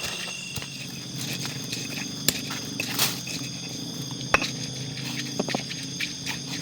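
Steady background of several high ringing tones over a low drone, with scattered sharp clicks and knocks, the loudest about three seconds in.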